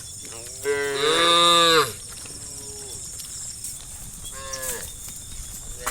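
Cows mooing: one loud, drawn-out moo about a second in, then two shorter, fainter moos from the herd.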